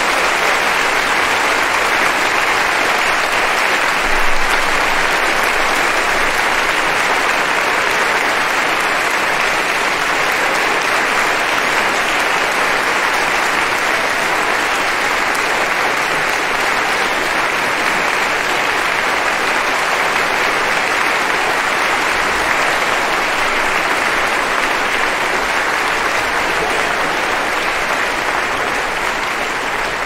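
Crowd applauding: dense, unbroken clapping that holds steady and begins to fade near the end.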